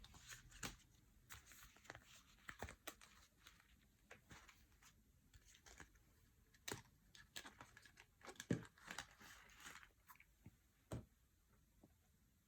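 Faint rustling and crinkling of paper packaging being handled, with scattered light taps and clicks; the sharpest tap comes about eight and a half seconds in.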